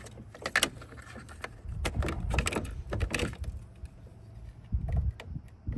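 Handling noise from a portable jump starter and its battery clamps: scattered clicks and knocks with some low thumps, and no motor or engine running.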